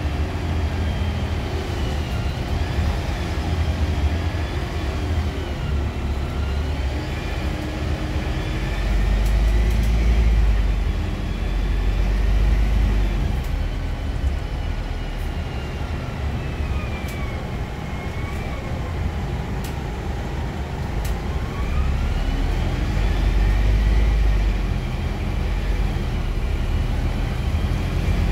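Inside a Scania Citywide II LF city bus under way: the low rumble of its compressed-natural-gas engine, swelling as the bus accelerates, with a drivetrain whine that rises and falls in pitch several times as the speed changes, and a few faint clicks.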